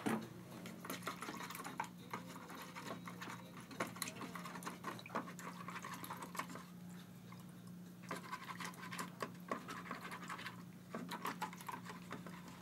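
Fingers swishing and rubbing a 3D-printed resin surgical guide in a small plastic bowl of alcohol, with splashes and small knocks against the bowl, rinsing off the uncured resin. Splashing comes in two busier spells, at the start and again past the middle, over a steady low hum.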